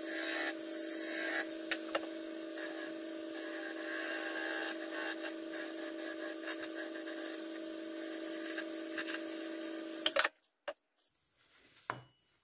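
Wood lathe running with a steady motor hum while a chisel cuts the spinning wood, a rasping hiss of shaving over the hum. The sound stops abruptly about ten seconds in, leaving only a few faint clicks.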